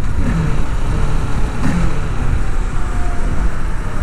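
A 2023 Kawasaki Ninja 650 being ridden: a steady, loud low rumble of its parallel-twin engine mixed with wind and road noise.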